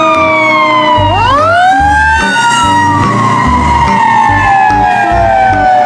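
Fire-engine siren wailing: a falling tone, then a quick rise about a second in and a long slow fall, over background music with a steady beat.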